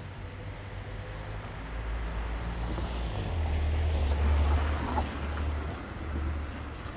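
A car driving past close by on a wet street: its low engine hum and tyre hiss build up, peak about four seconds in, then fade away.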